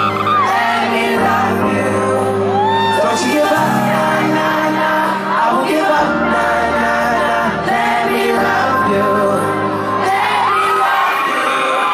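Live pop concert music: held synth chords and a bass line changing every couple of seconds, with singing over them and the crowd shouting and whooping.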